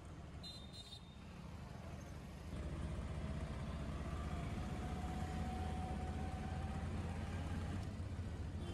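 A road vehicle running, with a low rumble that grows louder about two and a half seconds in and an engine note that rises slowly in pitch.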